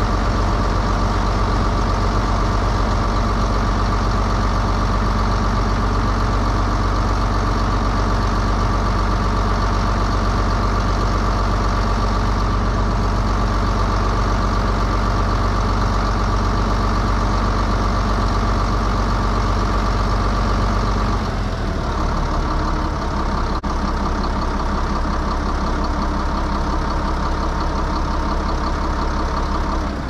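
Tractor diesel engine running steadily with a low, even drone. About two-thirds of the way through its note drops and gets a little quieter, as if it is slowing down.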